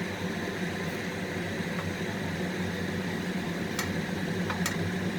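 Kitchen exhaust fan running with a steady hum, over a faint hiss of bread frying in butter in a pan. A couple of light clicks come near the end.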